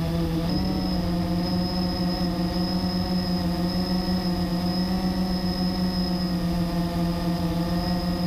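Blade 350 QX3 quadcopter's electric motors and propellers buzzing steadily in flight, picked up close by the drone's onboard GoPro. The pitch steps up slightly about half a second in.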